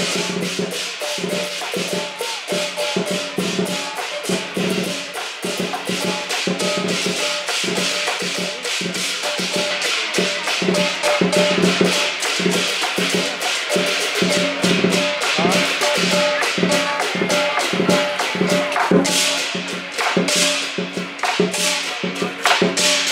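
Instrumental background music with a quick, steady percussive beat over a pitched accompaniment.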